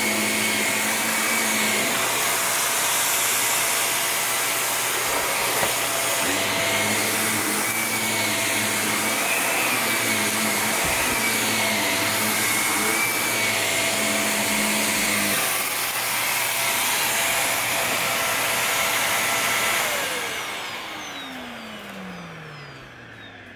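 Upright bagless vacuum cleaner running over carpet, a steady rushing with a high whine, its low hum shifting as it is pushed back and forth. Near the end it is switched off and the motor winds down, its pitch falling steadily.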